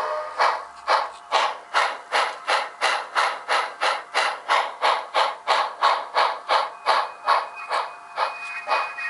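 Steam locomotive chuffing sound sample for a model railway, about two and a half chuffs a second and easing slightly near the end, played through a pair of 20 mm speakers in an isobaric enclosure, rear speaker sealed and front open. It has nothing in the deep bass.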